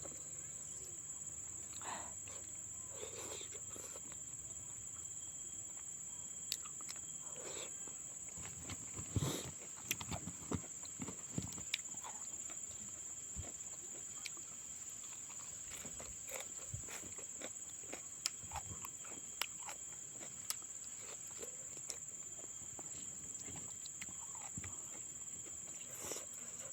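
Eating sounds from a fish head: scattered short wet clicks, smacks and crunches, busiest about a third of the way in, over a steady high-pitched drone of crickets.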